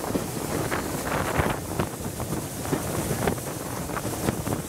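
Wind buffeting the microphone held out from the moving SR West Country Class steam locomotive 34027 Taw Valley, over the train's running noise with irregular knocks.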